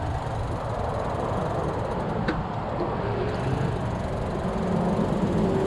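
Steady rush of Interstate 75 car traffic, with a single sharp click a little over two seconds in.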